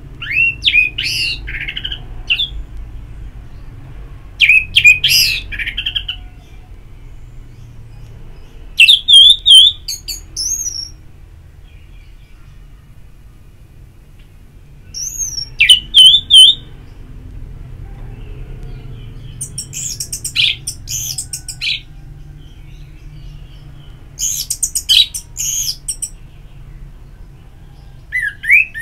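Orange-headed thrush singing in short, loud, varied whistled phrases, each a second or two long, with pauses of a few seconds between them. There are about seven phrases.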